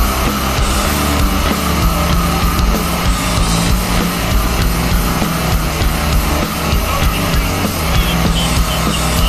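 Loud heavy rock music track.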